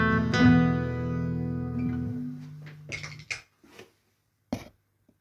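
Black cutaway acoustic guitar's last strummed chords ringing out and fading away, with a lower note sustaining to about three seconds in. After that come a few short clicks and rustles.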